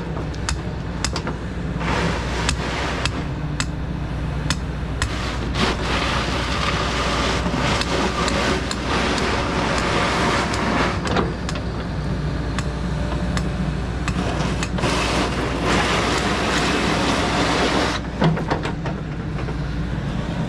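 A steady engine-like rumble, with scattered clicks and two stretches of louder scraping or rustling noise in the middle.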